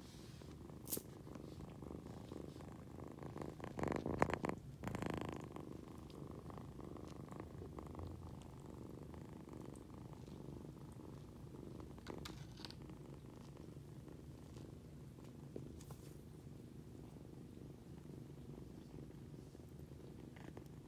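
Tabby kitten purring steadily, its purr a low continuous rumble right at the microphone. A louder stretch of scuffing noise comes about four to five seconds in, with a few small clicks elsewhere.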